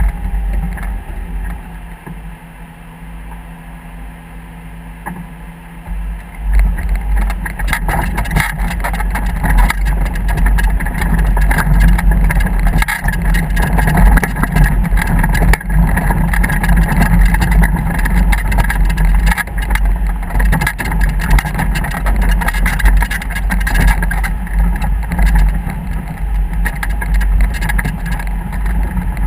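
Motorboat under way: a steady engine and rushing wind-and-water rumble, which gets louder about six seconds in.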